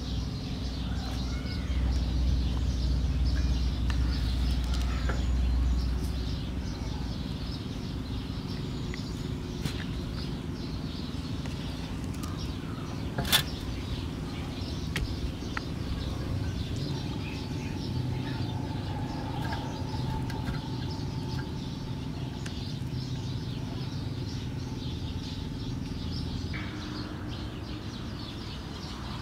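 Outdoor ambience with birds calling. A low rumble runs through the first several seconds, and there is a single sharp click about thirteen seconds in.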